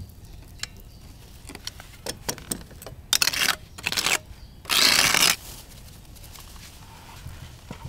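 A few light clicks, then three scraping strokes of a putty knife across textured exterior render, the last one the loudest and longest: scraping excess crack filler off the wall.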